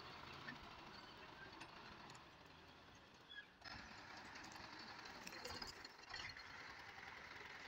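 Faint, steady running of a Belarus MTZ-50 tractor's four-cylinder diesel engine as it works its front blade through cut brush. The sound briefly drops out about three and a half seconds in.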